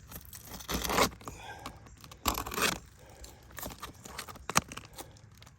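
An asphalt shingle being cut to size: two rough scraping strokes, followed by a sharp click about four and a half seconds in.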